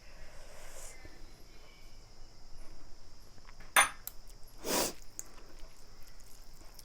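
Quiet eating sounds against room tone: a single sharp click about four seconds in, then a short rush of noise a second later.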